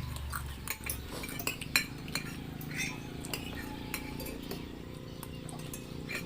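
Spoon and fork clinking and scraping against a plate while fried noodles are eaten: scattered light clicks, one sharper click about two seconds in, over a steady low hum.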